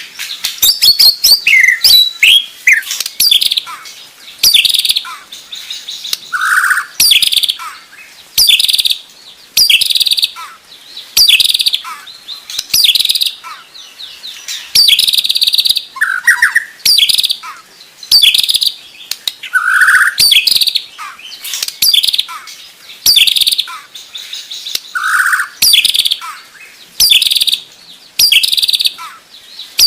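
White-rumped shama (murai batu) singing: short rapid-fire phrases of sharp, high notes repeated about every second and a half, with a few lower notes now and then.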